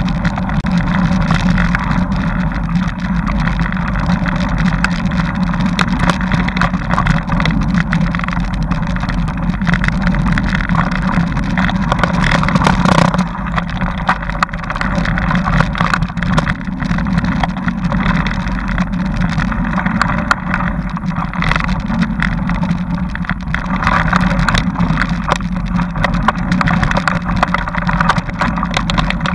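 Bike ride over a rough dirt trail, heard from a camera mounted on the bike: a loud, steady drone with constant rattling and jolts from the bumpy ground.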